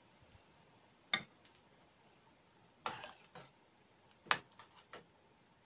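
Metal ladle clinking and knocking against a stainless steel soup pot while lifting meat out of the broth: a handful of sharp, irregular clinks, the loudest about four seconds in.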